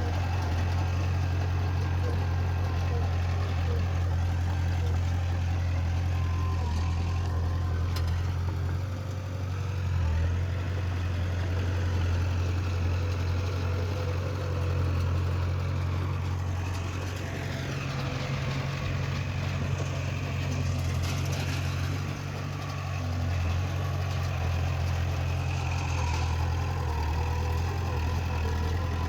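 Heavy diesel engine of earthmoving machinery running steadily: a low drone that dips and swells slightly in level.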